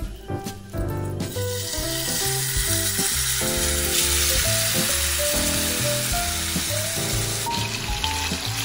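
Gochujang-marinated meat hitting hot oil in a nonstick wok: a sizzle starts suddenly about a second in as the meat lands, then settles into steady frying on medium-high heat.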